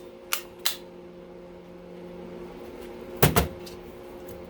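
A circuit breaker's toggle snapping over twice in quick succession, sharp clicks showing the mechanism still works. About three seconds in comes a louder double clunk of the metal parts being handled. A steady low electrical hum sits underneath.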